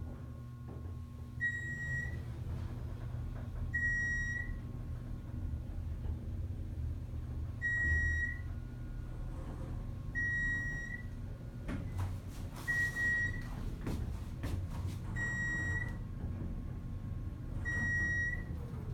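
Geared traction elevator riding up, with a short electronic floor-passing beep sounding seven times, about every two and a half seconds as the car passes each floor, over the steady low hum of the car in motion. A few faint knocks from the cab.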